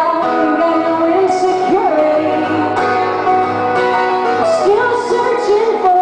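A woman singing a folk song, accompanying herself on a strummed acoustic guitar, with other acoustic players joining in.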